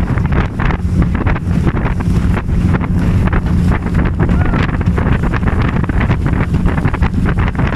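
Wind buffeting the microphone aboard a small open boat moving across a lake. A faint steady low hum runs underneath.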